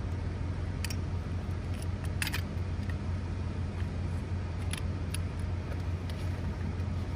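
A few light metallic clicks and rattles as collapsible cot legs are folded and slid into their storage bag, over a steady low hum.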